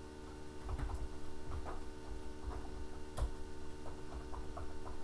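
Computer keyboard being typed on: a run of irregular key clicks, one louder near three seconds in, over a faint steady hum.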